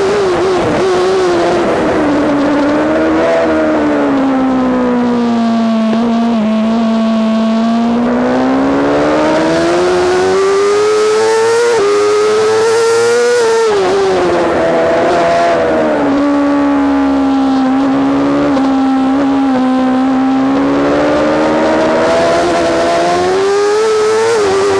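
Yamaha R6's inline-four engine at high revs, heard from on board the bike, its high-pitched note sliding down and up with speed. It falls over the first several seconds, climbs to a peak about halfway, drops sharply, then climbs again near the end.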